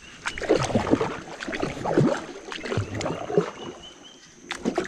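Water splashing and gurgling against a small boat, with several sharp knocks against the hull, quieter near the end.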